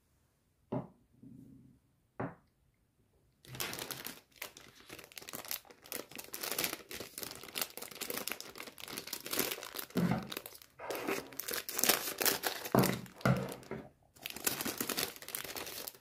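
Retail packaging of a miniature wooden easel and canvas crinkling and tearing as it is unwrapped by hand, after a couple of light clicks, with a few dull knocks among the crinkling.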